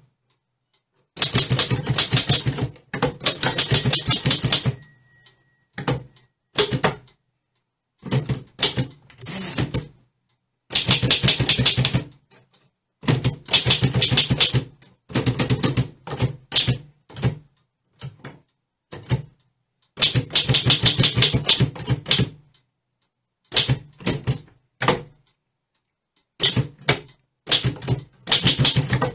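Typewriter being typed on: quick runs of sharp key strikes in bursts of a second or two, broken by short pauses, with a short ring about three and a half seconds in.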